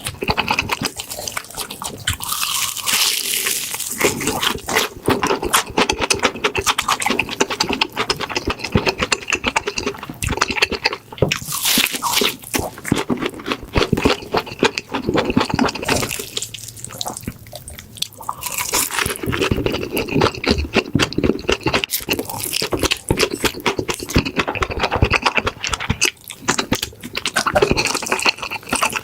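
Close-miked crunching and chewing of deep-fried breaded pork cutlet (tonkatsu): dense, irregular crackles of the crisp breadcrumb crust breaking between the teeth.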